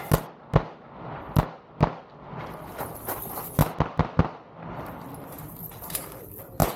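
Pistol shots fired in quick pairs as a shooter works through a stage, about ten sharp cracks with short pauses between the pairs.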